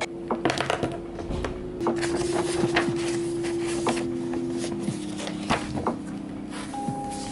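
Sheets of printed paper being leafed through and turned, a series of short rustles and flicks, over soft background music with long held notes.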